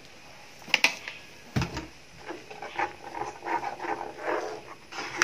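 A spoon clicks against a steel cooking pot about a second in, then a spatula stirs thick simmering buttermilk curry in the pot, making a run of irregular soft wet sloshing and scraping sounds.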